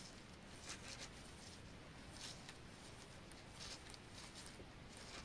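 Near silence with faint, irregular light clicks and scrapes of knitting needles as stitches are worked.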